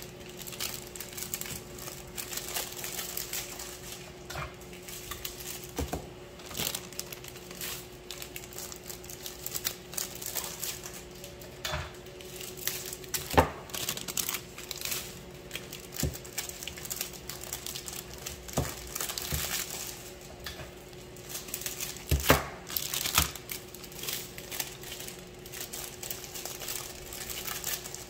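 Clear cellophane bags crinkling while baked bars are packed and handled, with scattered sharp clicks and knocks. The loudest come about halfway through and again a little later. A steady low hum runs underneath.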